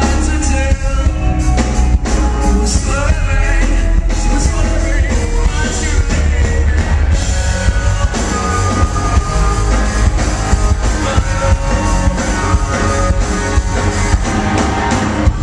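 A rock band playing live, with drums, electric guitars and bass under a male lead singer, heard from the audience through a small camcorder's microphone with a heavy, boomy low end.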